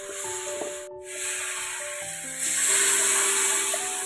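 Drumstick, potato and bitter gourd with mustard paste sizzling in a steel karai as they are stirred, then a louder hiss about two and a half seconds in as water goes into the hot pan. Soft background music with long held notes plays throughout.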